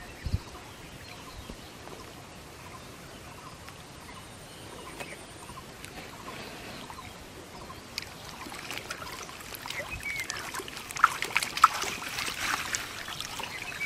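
Pond water sloshing, splashing and trickling as a man wades and works a bamboo-framed hand net through the shallows. Faint at first, it grows busier from about nine seconds in, with a couple of sharper splashes as the net is handled and lifted.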